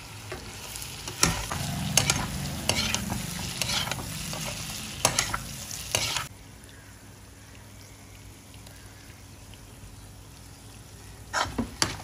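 A metal spatula stirs and scrapes brinjal pieces through onion-tomato masala in a frying pan, with sharp scrapes and knocks against the pan over a light sizzle. About six seconds in the stirring stops suddenly and only a faint sizzle remains. Scraping starts again near the end.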